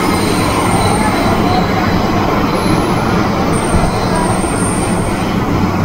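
Running noise of an MTR M-Train heard inside the carriage: a steady loud rumble of wheels on rail, with a thin high wheel squeal that comes and goes.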